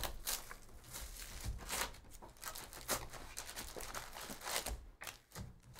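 Plastic shrink wrap crinkling and tearing off a Panini Donruss hobby box of trading cards, then the cardboard lid opened and foil card packs rustling as they are lifted out: a continuous run of crackly rustles and small scrapes.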